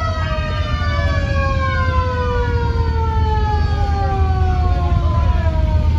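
A siren winding down, its pitch falling slowly and steadily, over the low steady rumble of vehicle engines passing.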